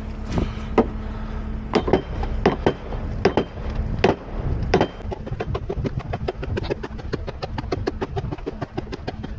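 Sharp metal knocks and strikes, irregular at first, then a fast even run of clicks about nine a second from about halfway through, over the steady hum of an idling engine.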